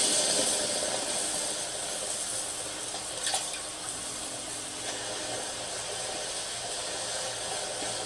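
Anime soundtrack: a steady rushing hiss of rain falling on water, loudest at the start and easing off over the first couple of seconds, with one faint short click a little after three seconds in.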